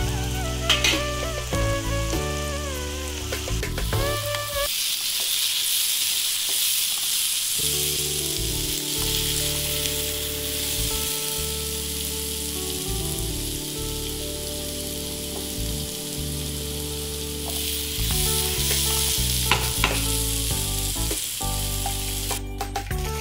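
Diced potatoes frying in a non-stick pan, sizzling steadily while a spatula stirs them, with a few sharp scrapes and taps of the spatula. The sizzle is loudest through the middle. Background music plays underneath.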